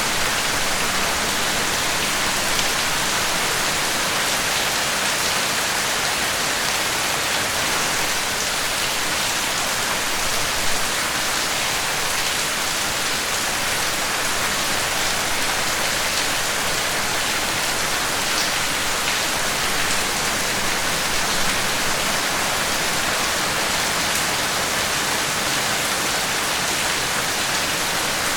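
Steady heavy rain falling on a surface, a dense even hiss with fine drop patter throughout.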